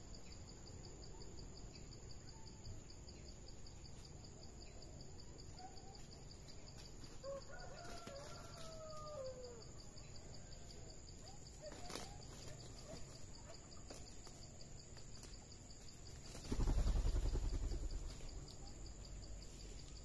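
Quiet outdoor background with a few faint bird calls in the middle and a single sharp click. Near the end, a burst of low rumbling noise lasting about a second and a half is the loudest sound.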